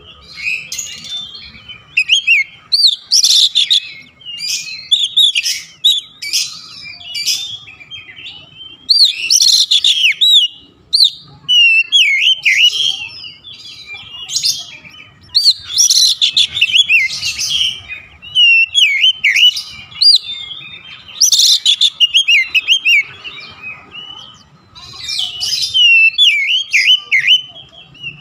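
Oriental magpie-robin singing a rapid, varied song of loud whistles, sweeping slurred notes and harsh chirps. It comes in bursts of one to three seconds with short pauses between them.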